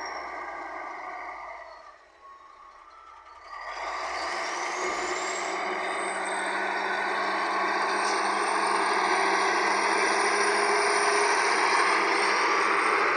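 Wheel loader's diesel engine working. It drops away briefly about two seconds in, then comes back with a rising whine. It then runs loud and steady, growing slowly louder.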